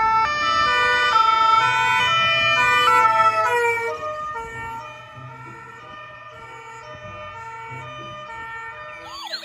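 Ambulance siren sounding in steady tones that switch pitch about twice a second, loud at first and fading to a softer level about four seconds in.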